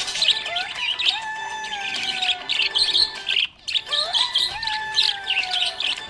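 Budgerigars chirping in rapid high twitters, with two drawn-out whistled notes that rise and then slowly fall. The sound breaks off briefly a little past the middle.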